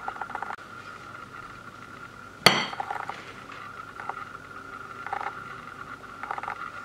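A metal spreading knife clinks once, sharply and with a brief ring, against tableware about two and a half seconds in. Short spells of light scraping follow as the knife spreads buttercream over a sponge roll cake.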